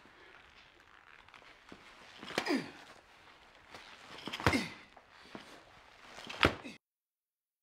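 Film fight sounds: three sudden strikes about two seconds apart, each with a falling yell. The sound then cuts out completely shortly before the end.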